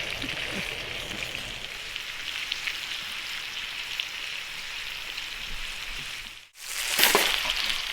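Thick slices of pork belly sizzling and spitting in their own fat over a campfire, a steady crackling hiss. It breaks off briefly near the end and comes back louder.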